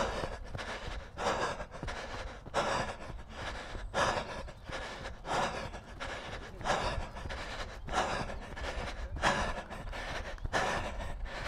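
A runner's heavy breathing, hard exhales coming about once every second and a half in a steady rhythm.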